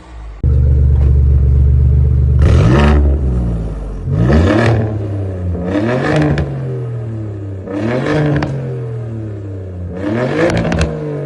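Alfa Romeo Giulia Quadrifoglio's 2.9-litre twin-turbo V6 running, coming in loud and steady about half a second in, then revved five times. Each time the pitch rises sharply and sinks back toward idle.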